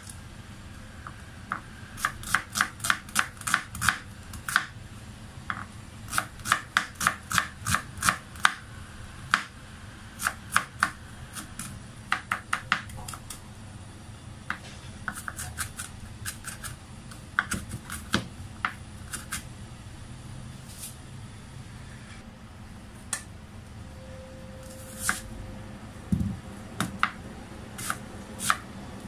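Kitchen knife chopping an onion on a wooden cutting board: runs of quick knife strokes hitting the board, about four to five a second, with short pauses between runs, thinning to scattered single cuts in the second half.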